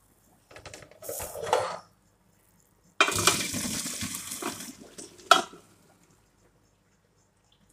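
Boiled sausage slices, corn and hot water poured from a pot into a colander: a sudden splashing rush about three seconds in that lasts about two seconds and ends with a sharp clank of metal. A shorter burst of clattering comes about a second in.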